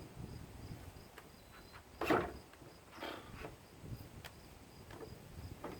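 Crickets chirping steadily, about three chirps a second, with a few sudden knocks and clatters from work on the mower. The loudest knock comes about two seconds in.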